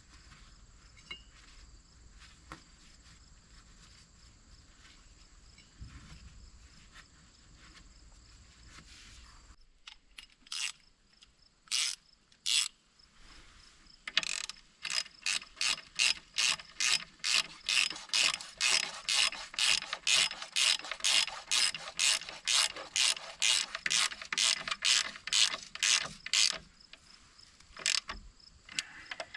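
Ratchet wrench clicking in a long run of quick, even strokes, about two or three a second, turning 17 mm bolts. A few scattered clicks come first, after a faint quiet stretch.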